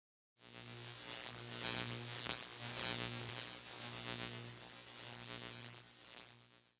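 Steady electrical mains hum with a buzz over it, starting abruptly and fading out near the end.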